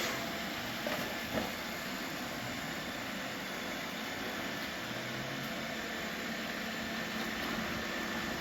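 Robot vacuum cleaners running, a steady whirring hiss of their motors and brushes, with a couple of light knocks about a second in.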